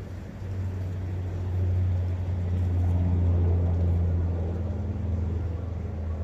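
Low engine rumble of a distant passing vehicle, swelling over the first few seconds and then easing off, with a steady hum in it.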